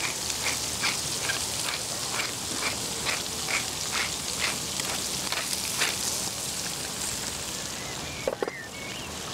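Scallops searing in a hot frying pan, a steady sizzle, with a regular series of short ticks about twice a second for the first six seconds.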